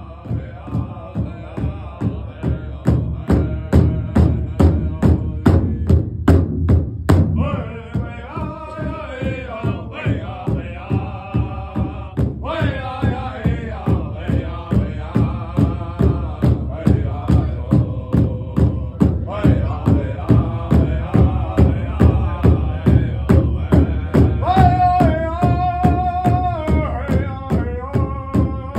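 A drum group striking a large powwow drum in unison at an even beat of about three strokes a second while singing together; high voices come in about halfway and again near the end.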